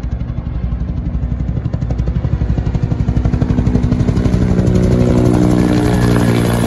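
Bell 206B JetRanger helicopter, its two-blade main rotor and turboshaft engine giving a fast, even rotor beat over a steady engine tone. It grows louder over the first few seconds as it comes closer, then holds steady.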